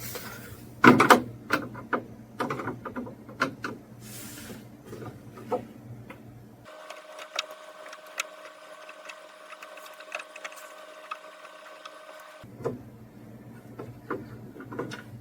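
Phillips screwdriver turning a screw out of a CRT television's plastic back cover: irregular clicks, ticks and scraping of the driver bit in the screw head and the plastic. In the middle the sound turns thinner, with faint steady tones, before the clicking resumes.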